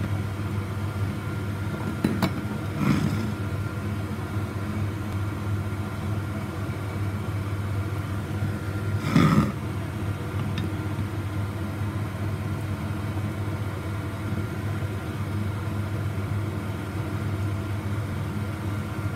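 Steady low machine hum in a small room, with a few brief soft noises over it, the loudest about nine seconds in.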